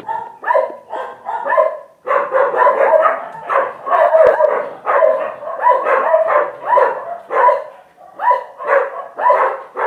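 A dog barking over and over in quick, loud barks, about two to three a second, pausing briefly twice.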